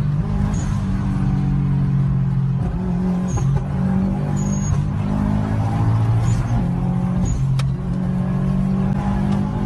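Turbocharged car engine running under load, its note stepping up and down in pitch, with several short high chirps over the top.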